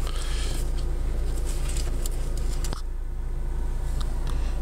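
Steady low hum of an idling car heard inside the cabin, with close rustling and handling noises that stop after a click about two and a half seconds in.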